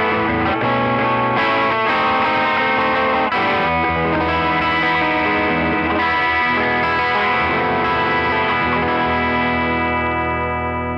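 Wayne Custom electric guitar through a Tone King Imperial MK 2 amp on a crunch setting, lightly overdriven, playing chords and single-note lines. Near the end a chord is left to ring out.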